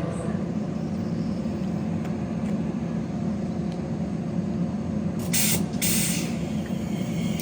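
A train's steady low rumble, with two short, sharp air hisses from its pneumatic brake system about five seconds in.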